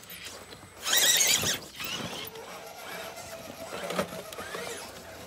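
Element Enduro Ecto RC rock crawler's electric drive whining faintly as it crawls up steep rock, with short rising revs. A loud, high, wavering squeal cuts across about a second in.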